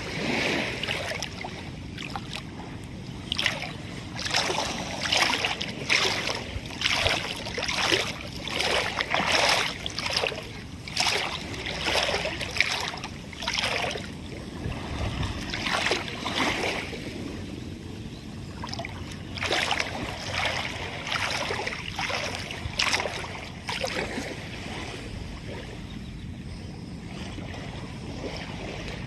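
Outdoor shoreline sound with wind on the microphone. Short splashing or crunching sounds come about once a second for the first half and thin out later, over a steady wash of water at the shore.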